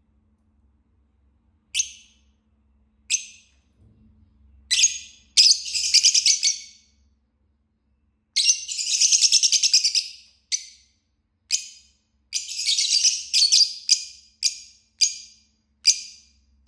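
Fischer's lovebird chirping and chattering: a few single sharp chirps, then longer runs of rapid high chatter from about five seconds in, broken by short pauses, with a string of quick chirps near the end.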